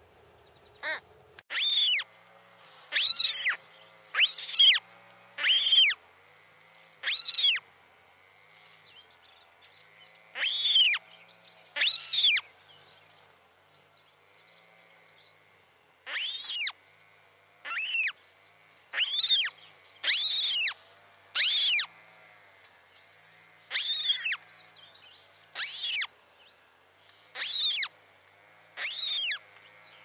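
Newly hatched white stork chick calling: short, high, mewing calls, each rising and then falling in pitch, repeated about once a second in two runs with a pause of several seconds in the middle.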